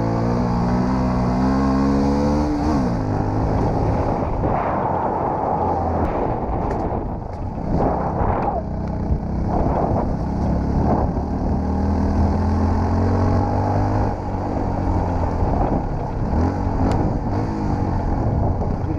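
Yamaha WR-X supermoto's single-cylinder four-stroke engine heard from on the bike while riding a rough dirt track. Revs climb and then drop sharply about three seconds in. A rougher middle stretch carries knocks and rattles over the bumps, and the engine pitch climbs again near the end.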